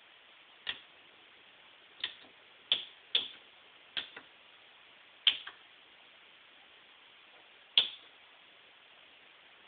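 Keys on an HP 5036A microprocessor board's keypad clicking as they are pressed: seven irregularly spaced clicks, several followed by a fainter release click.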